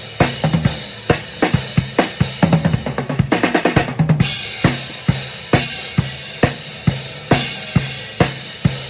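Drum kit played during a band sound check: a steady beat of about two strikes a second, with a quick run of hits about two and a half seconds in before the steady beat returns.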